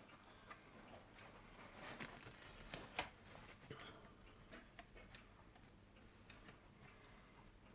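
Faint scattered clicks and small handling sounds as fingers work at prising the body off a Dapol Class 121 model railcar, with the sharpest click about three seconds in.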